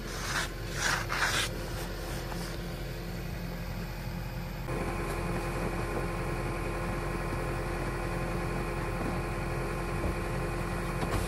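A snow brush scraping dry snow off a car windshield in several quick strokes in the first couple of seconds. After that, the steady hum of the car's engine idling.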